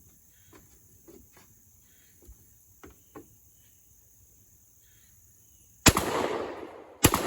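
Remington 1100 gas-operated semi-automatic shotgun fired twice in quick succession near the end, about a second apart, each shot loud with a long echoing tail. Before that there are only a few faint clicks of handling.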